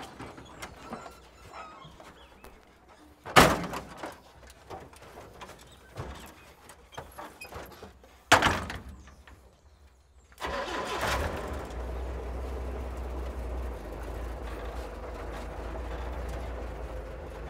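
Two loud slams of a pickup truck's doors, about five seconds apart, then about ten seconds in the old pickup truck's engine starts and idles steadily.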